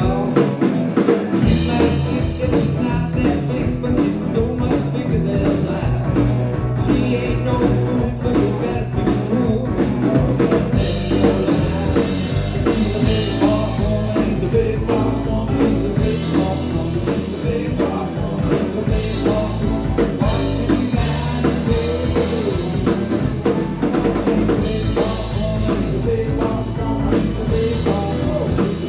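Live rock band with drum kit, electric bass, electric guitar and keyboards playing a song, with the drums prominent. The bass comes in about a second and a half in.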